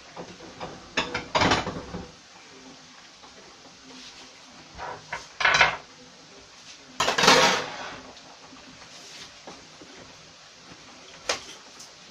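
Kitchen clatter of a pan, utensils and a ceramic plate: several separate clinks and knocks. The loudest is a longer scrape about seven seconds in, as the plate is slid across a wooden cutting board.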